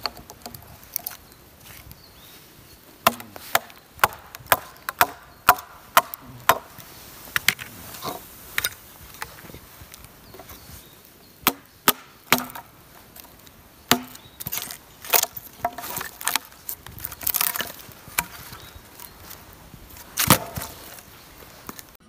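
Hatchet chopping dry wood into kindling. A quick run of sharp chops about two a second, then scattered strikes with pauses between them.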